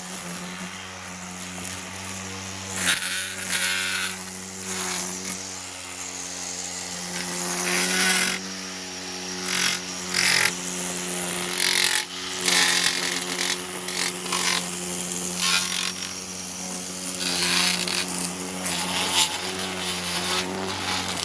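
Small gasoline engine of a garden power tool running steadily, with repeated short bursts of harsh noise over its hum.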